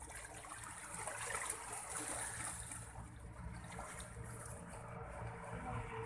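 Steady rush of shallow seawater, small waves washing and lapping in the shallows.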